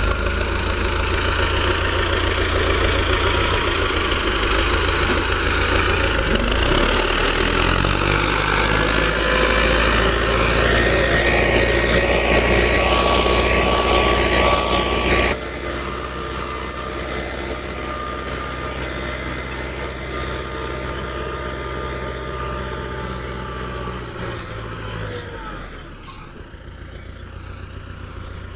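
Old tractor's diesel engine running steadily under load as it pulls a rotary 'hedgehog' weeder through potato rows. Loud and close at first, it drops abruptly to a quieter level about halfway through and fades further near the end.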